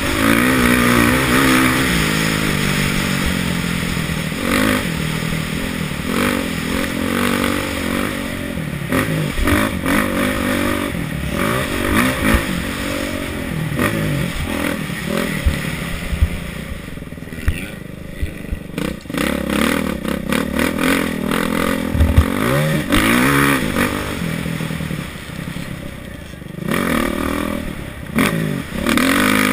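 Kawasaki KX450F single-cylinder four-stroke motocross engine revving up and falling back again and again at race pace, with rattling and scraping from the bike and a few sharp knocks, one a little past two-thirds through and one near the end.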